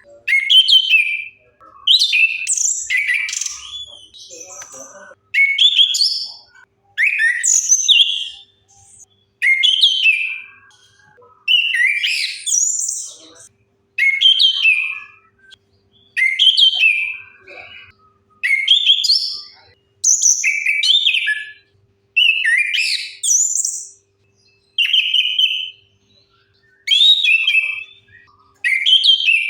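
Orange-headed thrush (anis kembang) singing: short, varied whistled phrases about a second long, one every two seconds or so.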